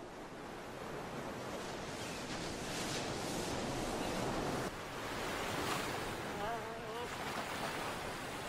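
Ocean surf breaking and washing up a beach: a steady rushing that swells, drops back sharply about halfway through, then rises again.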